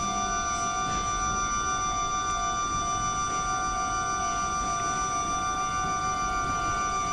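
Japanese electronic level crossing warning bells ringing, a steady multi-tone alarm with no let-up: the crossings are active for an approaching train.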